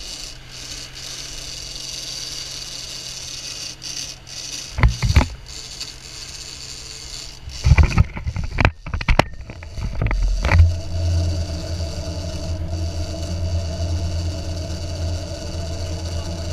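Fishing boat's engine running under way with wind and water noise. A few knocks and rattles come around five seconds in and again from about eight to ten and a half seconds, after which a louder, low steady engine drone sets in.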